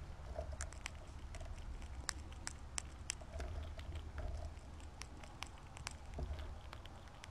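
Squirrel foraging in loose birdseed in a feeder tray: irregular sharp clicks and ticks as seeds and husks are pushed about and cracked, over a steady low rumble.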